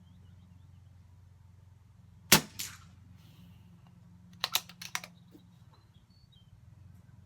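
An air rifle fires once with a sharp crack, followed about a third of a second later by a smaller crack of the pellet striking. About two seconds later comes a quick run of five or so sharp clicks.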